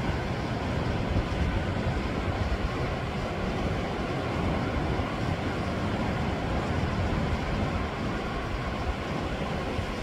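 Sea washing over a rocky shoreline: a steady, dense rushing noise heaviest in the low end, with no separate breaks or splashes standing out.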